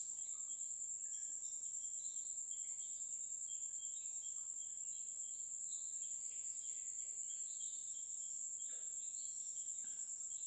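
A faint, steady high insect trill, like crickets, with scattered short chirps over it.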